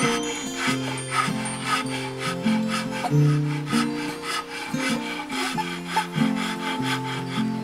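Acoustic background music: held, shifting chords over a quick, even, scratchy rhythm.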